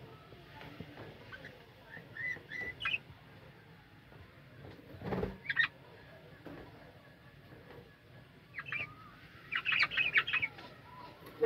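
Budgerigars chirping in short scattered calls, with a busier flurry of chirps near the end. A dull thump comes about five seconds in.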